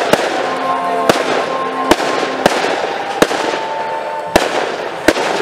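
Aerial firework shells bursting in quick succession, about seven sharp bangs over a continuous crackling hiss.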